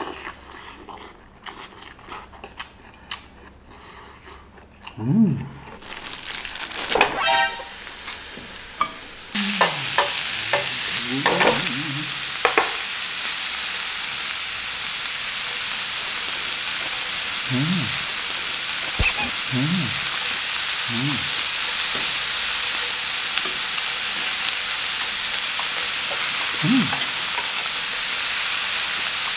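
Beef rib-finger meat (galbisal) frying in a hot frying pan: a loud, steady sizzle that starts suddenly about a third of the way in as the meat goes into the pan, with tongs stirring the slices.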